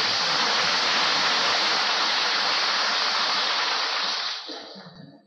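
Applause from a large assembly hall of deputies: dense, even clapping that dies away about four seconds in, heard on a restored 1937 recording.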